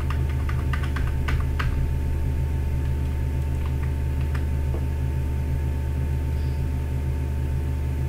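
Computer keyboard keystrokes, a quick run of clicks in the first couple of seconds and a few more about four seconds in, over a steady low electrical hum with a faint thin tone.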